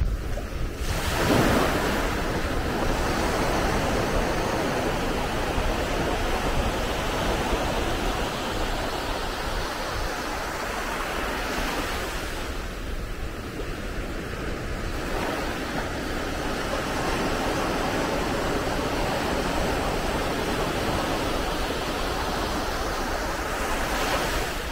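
Small waves breaking and washing up a sandy beach, then drawing back: a steady surf wash that swells loudest about a second in and again near the end.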